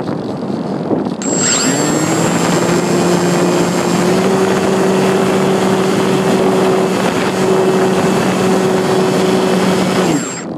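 An RC glider's motor and propeller, heard from the phone on board. After a second or so of air rushing past, the motor switches on with a high whine and a steady propeller hum, running for about nine seconds as the plane climbs away from the water. It cuts off suddenly near the end.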